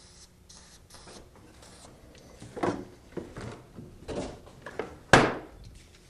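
Scattered light knocks and rustles of hands working a spray can around a steel garage door hinge and roller, with one sharp clack about five seconds in.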